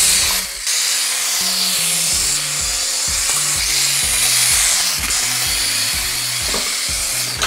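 Air Hogs Shadow Launcher mini remote-control helicopter in flight: its small battery-powered electric motor and rotors make a steady high buzzing whine. Background music with a stepping bass line plays under it.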